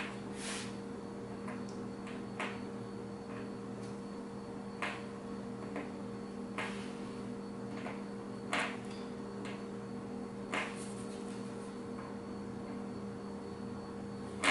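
Soldering iron at work on circuit board joints: about six faint, brief sizzles roughly two seconds apart, one as each resistor lead is soldered, over a steady low electrical hum.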